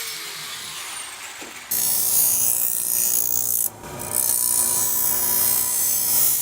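A power tool cutting through a small piece of steel strip, quieter at first, then much louder and steady from under two seconds in with a brief break near the middle.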